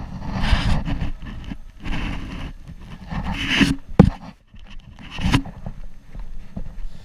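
Footsteps and rustling or scraping of clothing and gear close to the microphone, with a few louder scuffs and one sharp knock about four seconds in.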